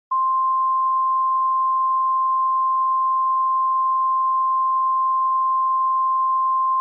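Emergency Alert System attention tone: a loud, steady, single-pitched electronic tone near 1 kHz that cuts in abruptly right at the start and holds unchanged.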